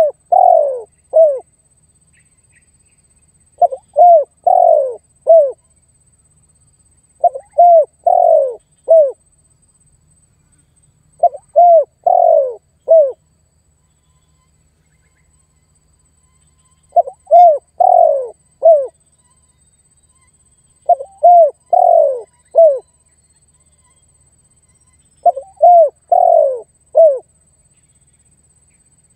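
Spotted dove (tekukur) cooing in repeated phrases of three or four coos, each phrase a short note followed by longer coos that drop in pitch. The phrases come about every four seconds, with a longer pause near the middle. It is the calling song used to call and challenge rival males.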